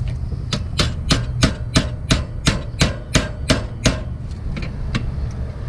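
About a dozen quick, sharp metal-on-metal taps, roughly three a second, then a few lighter ones: a hammer knocking on a 13/16 wrench to break loose the stuck propane line fitting on an RV fridge.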